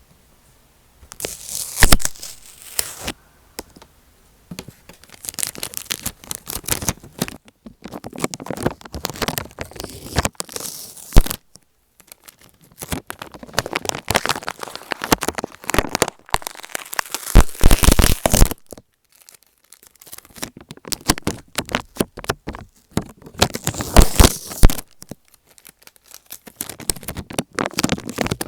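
Close, crackly scratching and rubbing on tape stuck over an Apple EarPods microphone, starting about a second in and coming in irregular bursts with brief pauses between them.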